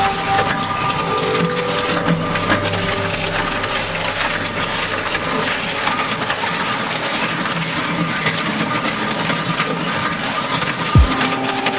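A machine crushing material: a dense, continuous crackling and crunching, with a low thud near the end.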